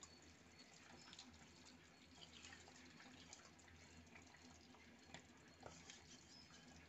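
Near silence: a faint low hum with a few faint wet ticks and drips as small whole fish are set by hand into simmering curry gravy in a clay pot.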